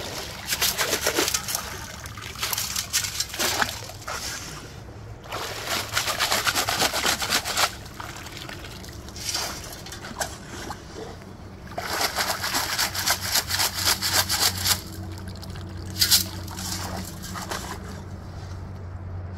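Long-handled metal mesh sand scoop being dug into a shallow stream's gravel bed and shaken in the water: splashing and sloshing with stones rattling in the scoop, in several bouts of two to three seconds with short pauses between.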